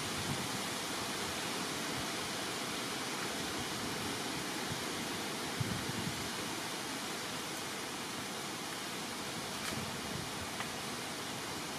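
Steady rushing noise with no rhythm or pitch, with a couple of faint clicks.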